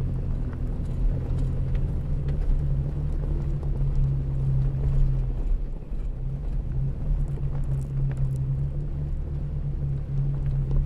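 Off-road vehicle's engine running at low speed on a dirt trail, a steady low drone that dips briefly about six seconds in. A few faint clicks sound over it.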